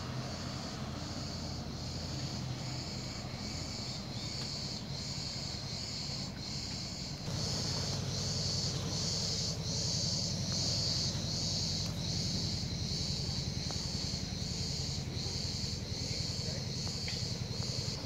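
Cicadas buzzing in a steady pulsing chorus, about one and a half pulses a second, growing louder about seven seconds in, over a low steady hum.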